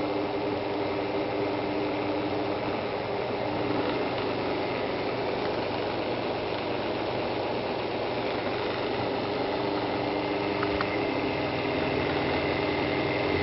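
Electric pump motor spun up and running steadily with a mechanical whirr and hum, getting a little louder near the end.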